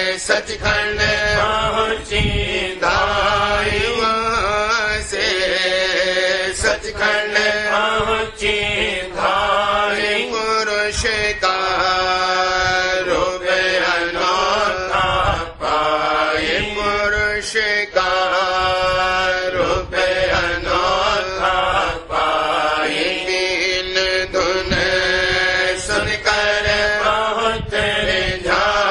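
Devotional chanting of a Radhasoami shabd: a voice sings long, wavering held notes, with the word "Sachkhand" near the start, over a steady drone and occasional light percussive strokes.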